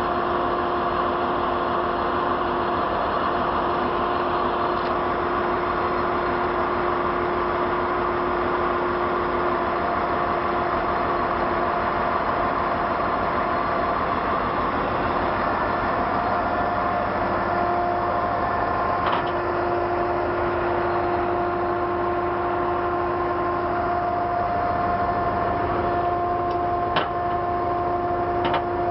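Heavy tow truck's engine running at a steady speed, with a few faint clicks near the end.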